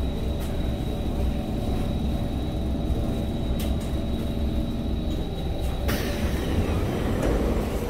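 Stationary SMRT C151 train at a platform with its doors open: a steady low hum and rumble with a thin high tone. About six seconds in, a sudden louder noisy sound starts as the doors close.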